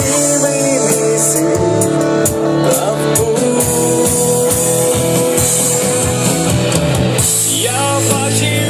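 Live rock band playing, with electric guitar and a drum kit's cymbals and beats under held notes.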